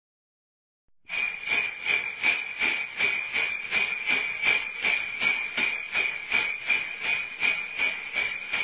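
Sleigh bells jingling in a steady shaking rhythm, about three shakes a second, starting about a second in.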